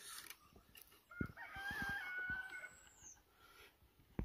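A rooster crowing once, one drawn-out call of about a second and a half.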